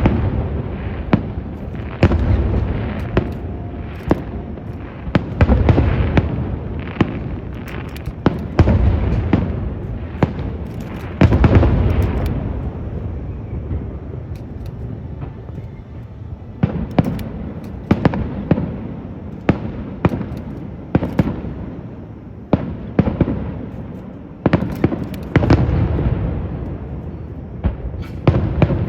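Aerial firework shells bursting in a rapid show: deep booms every few seconds, each trailing off, among many sharp, crackling reports.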